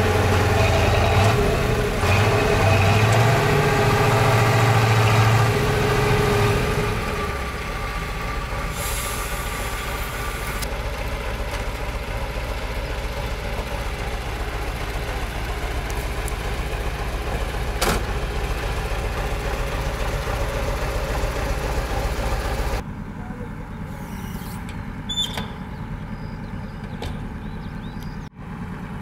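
Heavy diesel engine running fast for the first several seconds, then settling to a steady idle. About three-quarters of the way through, the sound drops abruptly to a quieter engine hum with a few short clicks.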